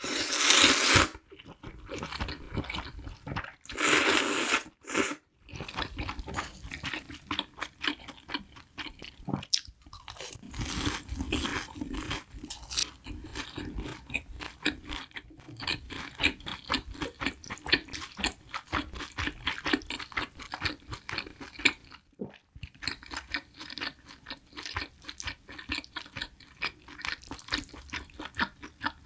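Close-miked eating: two loud slurps of buckwheat noodles within the first few seconds, then steady wet chewing with crunchy bites of a fried pork cutlet.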